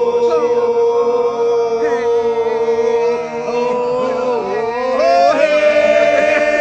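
Voices holding long, wordless chant-like tones together, several pitches overlapping. The main tone holds steady, then slides up about five seconds in and holds at the higher pitch.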